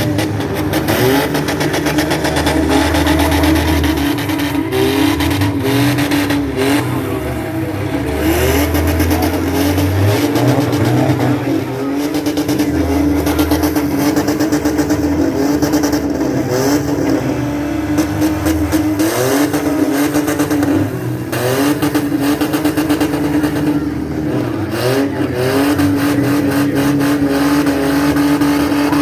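Several demolition derby cars' engines running and revving hard, pitch rising and falling, with scattered sharp knocks and bangs of cars colliding.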